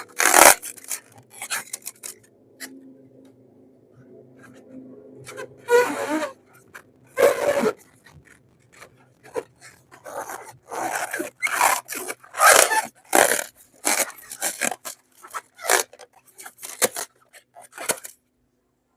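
Slime-filled rubber balloon being rubbed and squeezed: irregular short rubbing and squishing noises, stopping about a second before the end.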